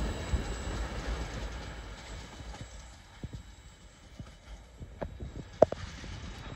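Container freight train rolling away on the rails, its wheel rumble fading steadily over the first three seconds. Then come a few scattered sharp clicks, the loudest about two-thirds of the way in.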